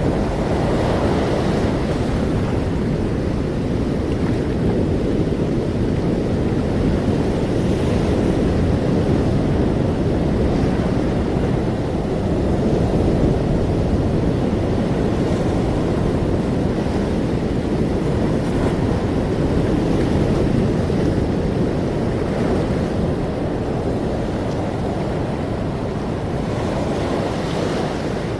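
Ocean waves breaking and washing on a shore: a steady rushing hiss with gentle surges every few seconds.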